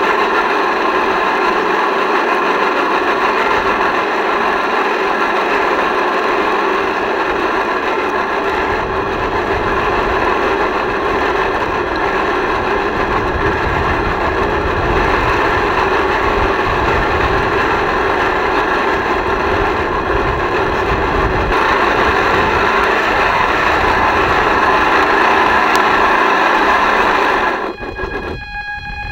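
A small boat motor running steadily with a whine, over splashing water and rumble on the microphone. About 28 seconds in it eases off for a second and a half, then picks up again.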